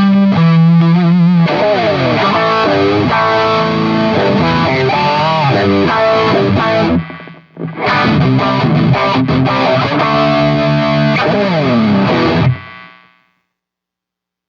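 Electric guitar with distortion played through an M-vave Mini-Amp preamp pedal, a riff with bent and sliding notes. It breaks off briefly about seven seconds in, then stops suddenly near the end and rings out into silence.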